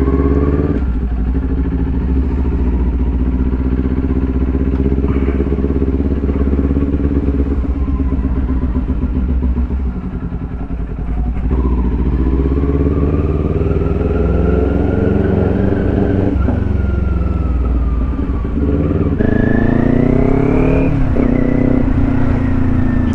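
Kawasaki Ninja 400 parallel-twin engine running while the bike is ridden. Its pitch holds steady for about ten seconds, then rises as it accelerates, eases, and climbs again after a gear change near the end.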